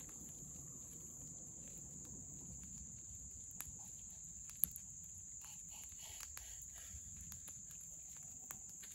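A steady, high-pitched chorus of insects trilling, with scattered light clicks and knocks of camp cookware being handled, and one sharper click about four and a half seconds in.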